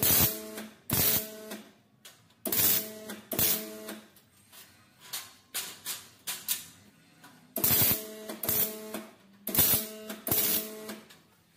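Metalwork on a tubular steel gate frame: eight short bursts, each with a ringing tone, coming in four pairs.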